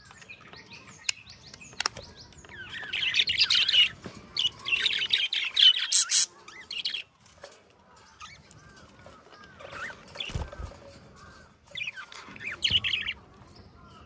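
A flock of budgerigars chattering and warbling: two loud stretches of dense chatter in the first half, softer scattered chirps after that, and another short burst near the end.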